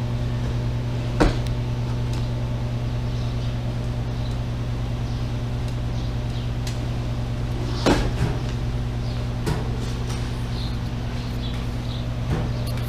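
A steady low hum with a few sharp clunks and clicks, the loudest about a second in and near eight seconds, as the throttle of a Honda Magna 750 is twisted and released by hand to check the carburetor slides.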